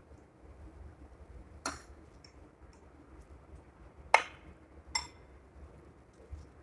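Metal spoon clinking against a dinner plate three times, each clink with a short high ring; the second, about four seconds in, is the loudest.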